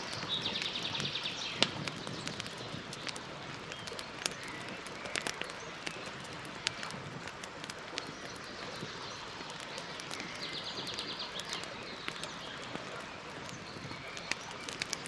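Campfire crackling, with sharp pops of burning wood scattered over a steady hiss; the loudest pop comes about one and a half seconds in. Twice a short, fast bird trill sounds, near the start and about ten seconds in.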